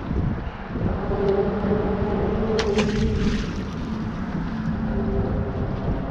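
Steady wind on the microphone over rushing tidal water, with a few sharp clicks about two and a half seconds in.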